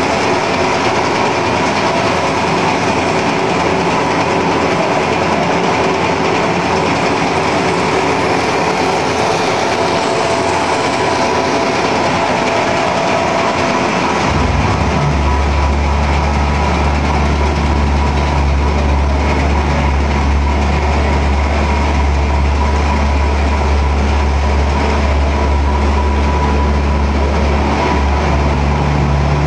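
Machinery of a core-filled snack processing line running: a loud, continuous mechanical din from the extruder and conveyors. About fourteen seconds in, a deeper steady hum sets in abruptly.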